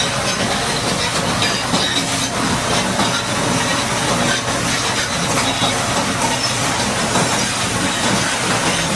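Steady hiss of a high-pressure water jet washing heavy equipment, over a low, steady engine hum.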